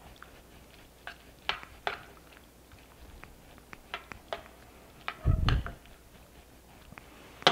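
Metal tongs stirring campanelle pasta through a thick cream sauce in a metal skillet: wet squishing with scattered clicks of the tongs against the pan. A heavier thump comes a little past five seconds in.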